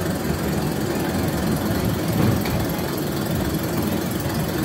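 Steady low rumble aboard a spinning teacup-style children's locomotive ride in motion, with no clear tones or distinct knocks.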